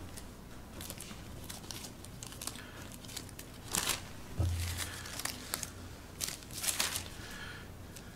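Thin Bible pages rustling and crinkling as they are turned, in several short rustles, the loudest about four seconds in and again around six to seven seconds.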